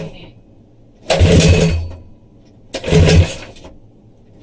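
Predator 212 single-cylinder four-stroke engine on a minibike being pull-started twice. Each pull gives a burst of about a second of cranking and firing that dies away, so the engine is not yet catching and running.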